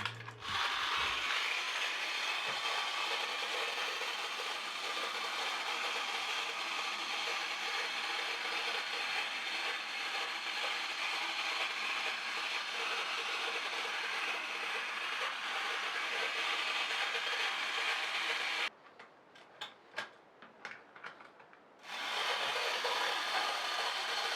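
Clockwork mechanism of a wind-up toy robot running, a steady gear rattle. It stops for about three seconds near the end, with a few scattered clicks, then starts again.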